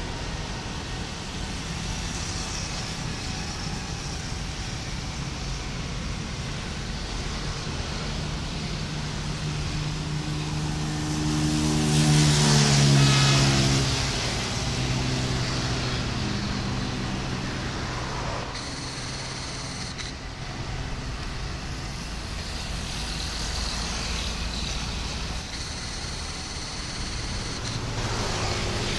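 Diesel locomotive approaching slowly, its engine running with a low rumble; a pitched drone swells to its loudest about halfway through and then eases off.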